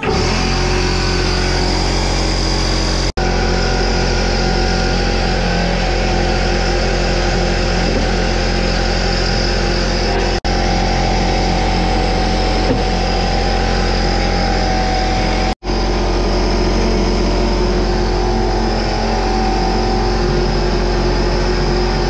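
Electric pancake air compressor running steadily, a loud motor-and-pump drone, with brief dropouts three times.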